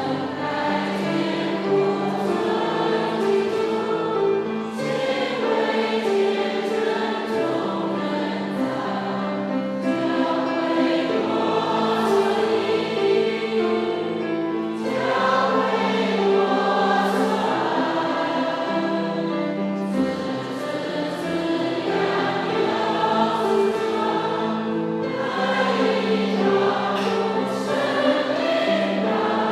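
A choir or congregation singing a hymn together, many voices holding long sustained notes in a slow, steady melody.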